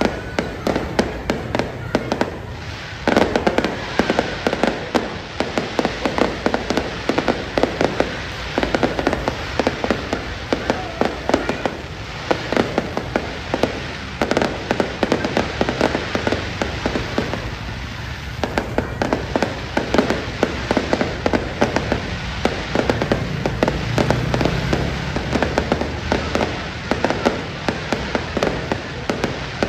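Aerial fireworks going off in a continuous barrage: shells launching and bursting, with many sharp bangs and pops a second.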